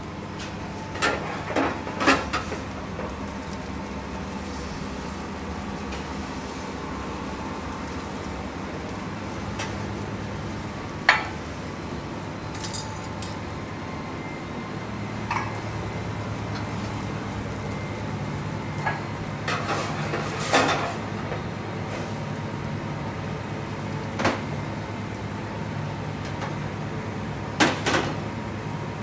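Stainless saucepans and metal utensils clinking and knocking on a gas range, in scattered single strikes and short clusters, the sharpest about eleven seconds in. Under them runs a steady low hum.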